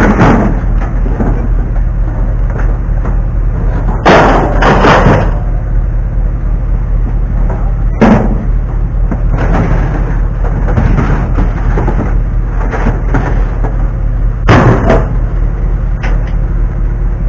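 Scrap metal being thrown from a pickup bed onto a scrap pile: loud clanks and crashes every few seconds, the heaviest about four seconds in, at eight seconds and near the end, over a steady low hum.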